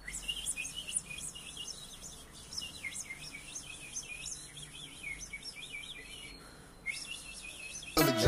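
A man imitating a little bird with his mouth: a rapid run of short, high chirps, with a brief pause near the end. Music cuts in just at the end.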